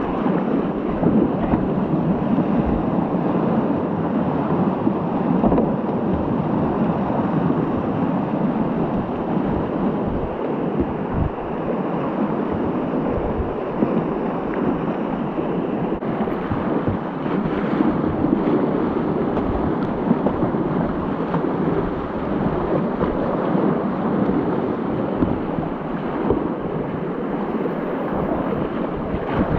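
Whitewater rapids rushing steadily around a kayak, with wind rumbling on the camera microphone.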